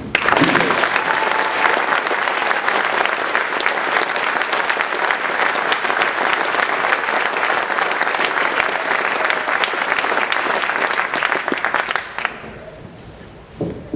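Crowd applauding, many hands clapping at once, for about twelve seconds, then dying away near the end.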